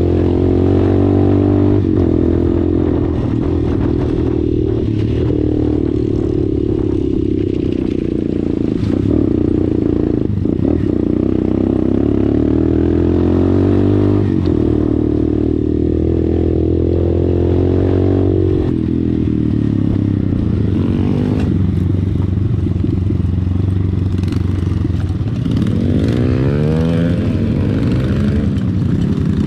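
Dirt bike engine running under way on a rocky trail, its pitch rising and falling with the throttle, with occasional clatter from stones under the bike.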